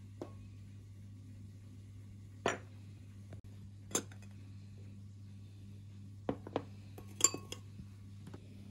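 A metal teaspoon clinking against small glass spice jars and a glass bowl as spices are scooped and tipped in: several separate clinks, the loudest and most ringing near the end. A faint low hum runs steadily underneath.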